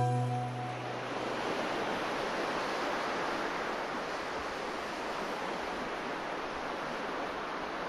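Ocean waves washing in a steady rush of surf. In the first second the last low note of a pop song fades out.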